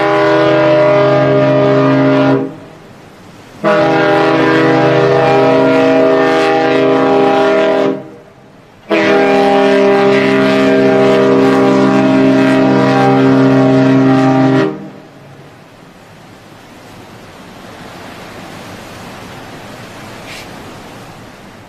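A ship's deep horn sounding long blasts: one already running as the sound opens, then two more, the last about six seconds long. After that, only quieter wind and waves.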